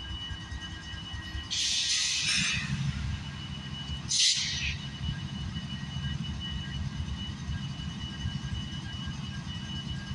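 Union Pacific diesel locomotives running at idle with a steady low rumble and a few faint steady high tones over it. Two short bursts of hiss come about one and a half and four seconds in, the second the louder.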